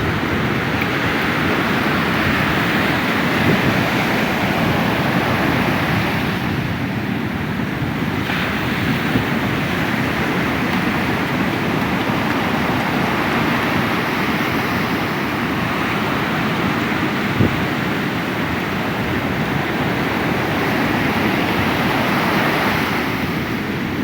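Ocean surf breaking and washing up the beach in continuous rushes that swell and ease, with wind buffeting the microphone. A short knock sounds about seventeen seconds in.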